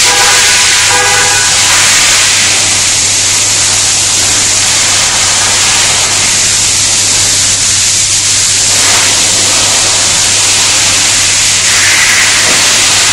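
A loud, steady hiss with a steady low hum underneath, and faint voices in the first second or two and again near the end.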